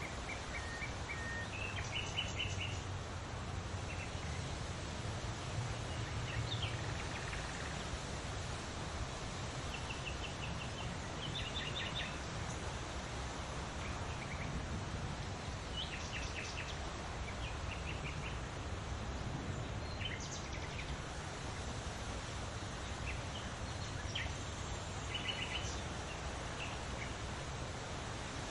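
Wild birds chirping in short, repeated bursts over a steady outdoor background hiss.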